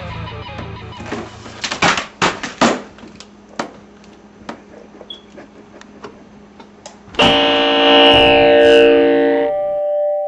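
Electric guitar music with distortion, with a few sharp knocks about two seconds in. About seven seconds in a loud sustained chord comes in, holds, then rings out and fades near the end.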